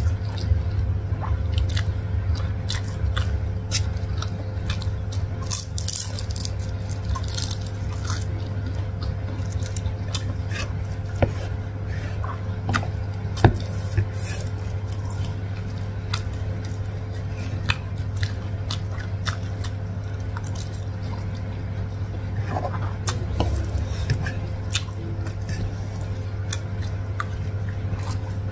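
Close-miked mouth sounds of someone eating spicy carbonara instant noodles and fried dumplings: chewing and slurping with many small, sharp wet clicks scattered throughout. A steady low hum runs underneath.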